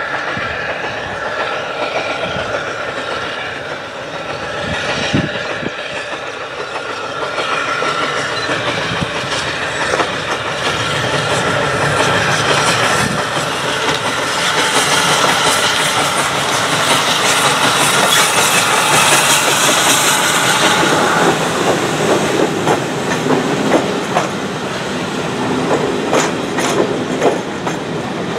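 Steam-hauled heritage passenger train running past, its wheels clicking over the rail joints. The rush builds to its loudest in the middle, with a hiss over the top, then eases, leaving separate clicks near the end.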